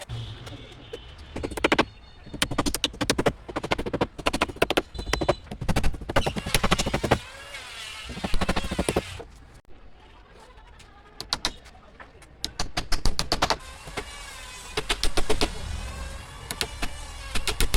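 Woodworking noise: a run of sharp knocks and taps, with a small electric motor whining at a wavering pitch at times, as from a cordless drill driving screws.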